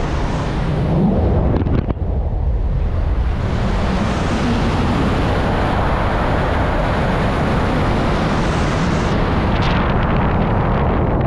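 Airflow rushing over the microphone of a speed-flying pilot's camera in flight: loud, steady wind noise, heaviest in the low end, with a brief dip about two seconds in.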